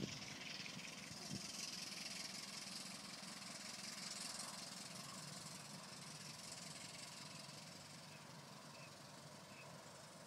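Old steam car running along with a steady hiss that slowly fades, heard from aboard; a single low thump about a second in.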